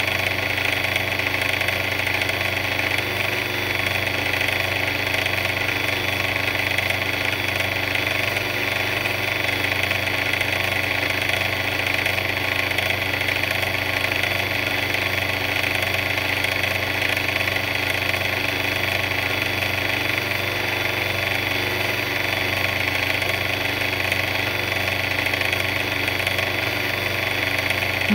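A big mixer running steadily, its motor giving an even, unchanging drone with several steady tones.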